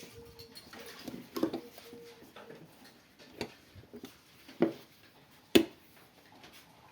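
Pliers and a screwdriver clicking and knocking against the metal parts of a blender motor while its square drive coupling is tightened: a few separate knocks, the sharpest about five and a half seconds in.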